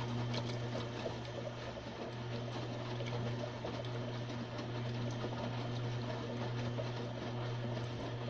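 Washing machine running: a steady electric hum from its pump or water valve, with water rushing and splashing inside, cutting off abruptly near the end.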